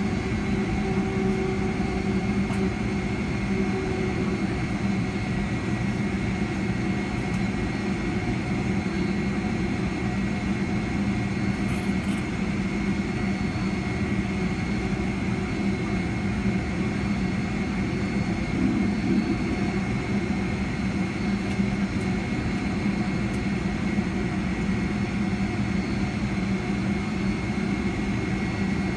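Boeing 757-300 holding still with its jet engines at idle, heard from inside the cabin: a constant low hum with a steady high whine.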